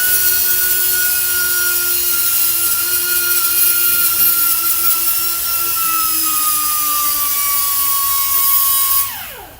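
A small high-speed power tool, such as an air grinder or drill, running with a steady high whine that sags slightly in pitch, then released about nine seconds in and spinning down quickly to a stop.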